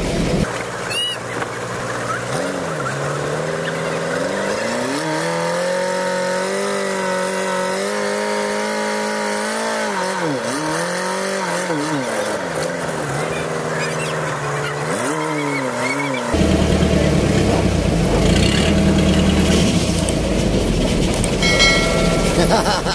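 Boat engine running, its speed rising and dipping several times. About sixteen seconds in the sound changes abruptly to a louder, lower rumble.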